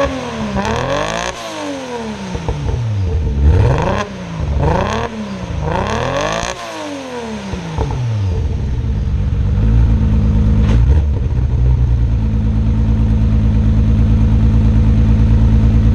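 Nissan R32 Skyline GT-R's twin-turbo straight-six blipped several times in quick succession, the revs rising and falling, then settling into a steady idle. The engine has a misfire that the owner suspects is down to the tune, since the plugs and coil packs look fine.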